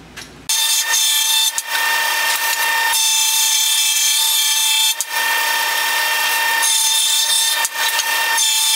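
Benchtop jointer running with a steady high whine while a red oak block is fed across its cutterhead to square it, the cutting hiss swelling and easing as the wood passes over the knives. The sound starts abruptly about half a second in.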